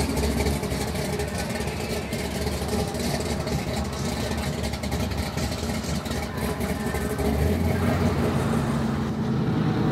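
Supercharged V8 of a blown pro street Chevrolet Impala rumbling deeply while the car creeps along at low speed, its tone shifting about seven and a half seconds in.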